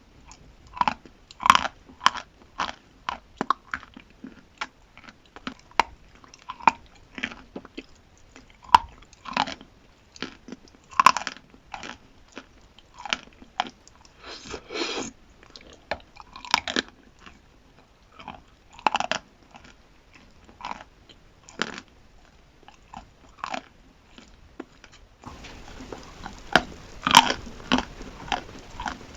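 Close-miked biting and chewing of chalk: sharp, irregular crunches, one or two a second, with a denser crackle partway through. A faint steady hiss comes in near the end.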